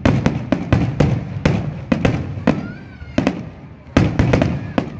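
Fireworks going off: a rapid, irregular string of sharp bangs, each trailing off in a rumble. The bangs are densest at the start and again about four seconds in, with a brief lull and a short pitched glide near the middle.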